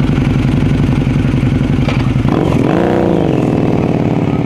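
Harley-Davidson V-twin motorcycle engine idling, then revved once a little over two seconds in, the pitch rising and falling back to idle.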